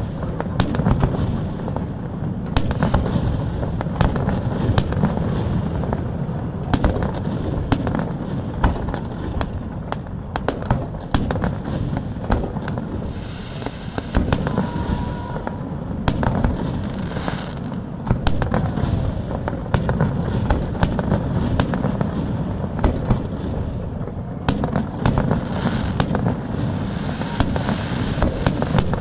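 Aerial fireworks shells launching and bursting in quick succession: a dense run of sharp bangs and crackles over a continuous low rumble.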